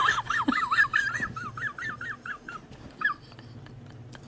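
High-pitched whimpering like a begging dog: a quick run of short whines that waver up and down and fade out about three seconds in.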